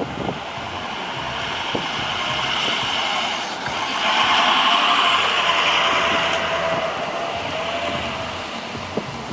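A van driving past close by: engine and tyre noise swell over about four seconds, peak, and fade away again.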